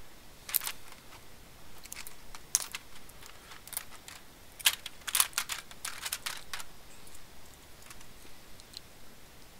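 Clear plastic shipping tubes of IRF3205 power MOSFETs being handled, giving a scatter of sharp plastic clicks and knocks, busiest from about two to six and a half seconds in.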